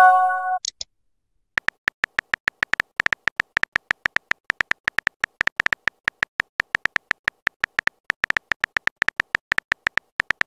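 Simulated phone-keyboard typing sound from a texting-story app: short, even clicks about five a second as a message is typed out letter by letter. It opens with a brief chime as a message is posted.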